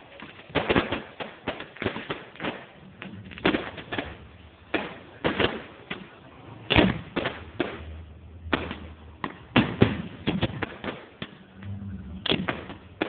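Fireworks going off: a dense, irregular string of sharp bangs and pops, several a second, with a few louder blasts among them.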